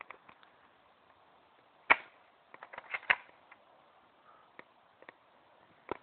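Airsoft guns firing single shots: scattered sharp snaps at an irregular pace, the loudest about two seconds in and a quick cluster around three seconds.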